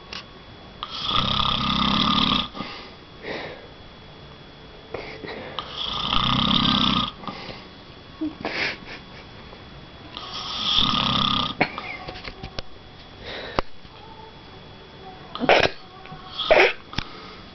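A man snoring deeply in his sleep: three long, loud snores about four to five seconds apart, with quieter breathing between. Two short, sharp sounds follow near the end.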